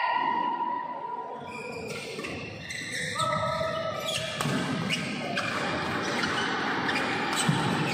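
Badminton rally on an indoor court: a string of sharp racket strikes on the shuttlecock, with a few short shoe squeaks on the court floor about three seconds in.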